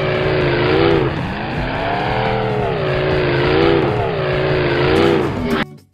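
Race-car engine sound effect: an engine revving up and down in repeated waves over a loud hiss, cutting off suddenly near the end.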